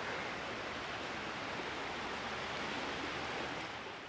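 Steady rushing beach ambience of wind and sea, with no distinct events, beginning to fade out near the end.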